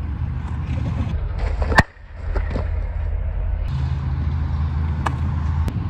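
A baseball bat hits a pitched ball with one sharp crack about two seconds in, over a steady low rumble of traffic, with a couple of fainter clicks later.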